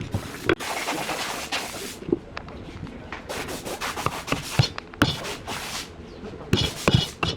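Wood being worked by hand: a long rubbing or scraping stroke across the wood, then a run of sharp knocks and clicks, the loudest near the end.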